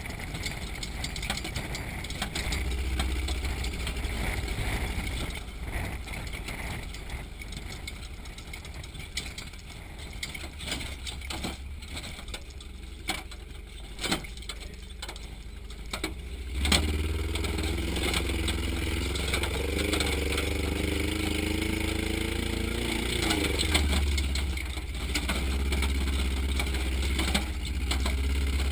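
Off-road trophy truck driving over rough desert terrain, heard from inside the cab: the engine runs under knocks and rattles from the chassis over bumps, then about two-thirds of the way in it gets suddenly louder and revs up and down.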